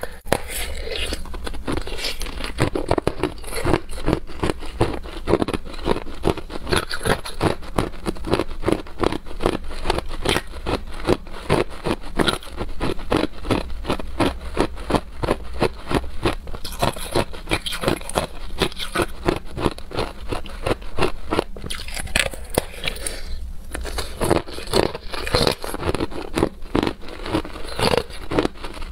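Hard clear ice being bitten and chewed close to the microphone: a dense run of crunching and crackling, with a short pause about two-thirds of the way in.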